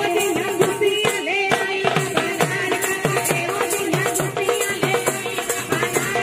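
Women singing Punjabi boliyan through microphones over a dhol drum playing a steady beat, with the jingles of a chimta clashing in time.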